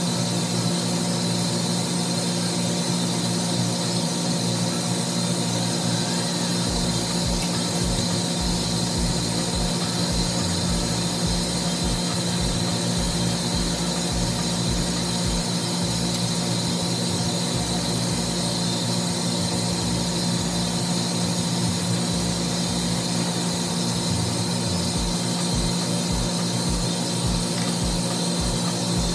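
Steady hum and hiss of steam-room machinery running, with irregular low thumps starting about a quarter of the way in.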